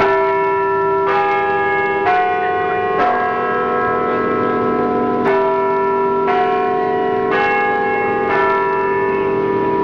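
A peal of bells, struck one at a time about once a second, each note ringing on under the next. There are eight strikes, with a pause of about two seconds after the fourth.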